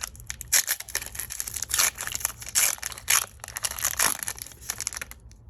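Foil Pokémon booster pack wrapper crinkling in a series of irregular crackles as it is torn open by hand.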